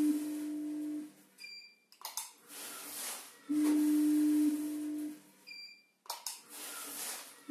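Powder and granule weighing-filling machine running its dispensing cycle twice. Its feeder hums steadily as it fills the weigh hopper, loud and then softer, and a short high beep sounds when the set weight is reached. A click follows as the pedal releases the load, then a hissing rush of loose tea leaves pouring out.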